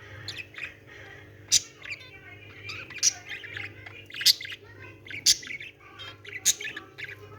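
Small cage birds, budgerigars and zebra finches, chirping and chattering, with sharp loud calls about once a second over steady twittering.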